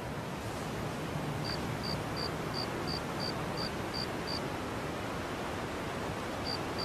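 A steady hiss of background noise with a cricket chirping about three times a second, in a run of some nine chirps from about a second and a half in, starting again near the end.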